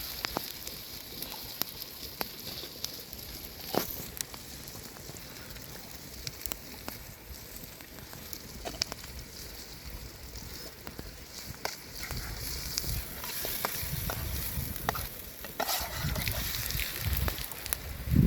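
Food sizzling in a pan over an open wood fire: a steady hiss with scattered crackles and pops, and a few low thuds near the end.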